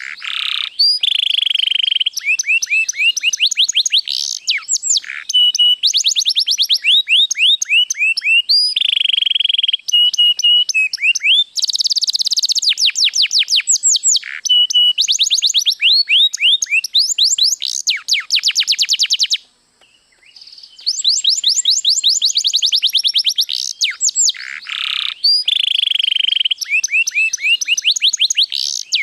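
White domestic canary singing continuously in long, fast trills and rolling phrases, with one short pause of about a second and a half about two-thirds of the way through.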